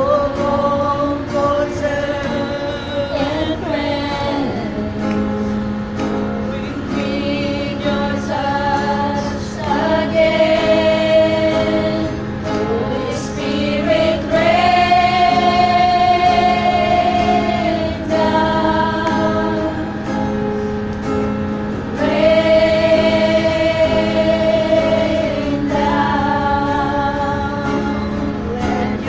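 A small group of women singing a worship song together, holding several long notes.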